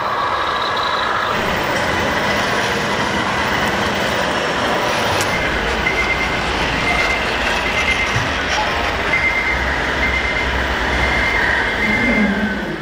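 Sound modules of radio-controlled scale fire trucks playing truck engine sounds over the steady hubbub of an exhibition hall. From about halfway, a high electronic beep repeats about twice a second, like a truck's reversing alarm.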